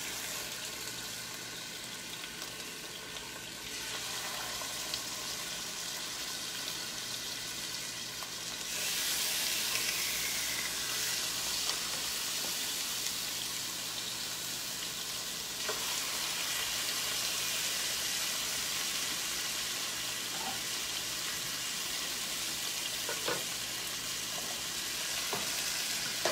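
Seasoned raw chicken thighs sizzling in butter and olive oil in a hot skillet: a steady frying hiss that grows louder about nine seconds in. A few light clicks come later.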